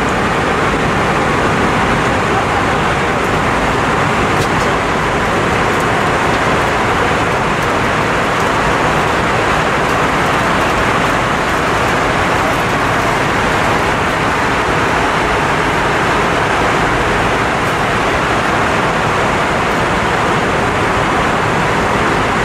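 Steady cabin noise of an Airbus A320-232 in flight: an even rush of airflow mixed with the sound of its IAE V2500 turbofan engines.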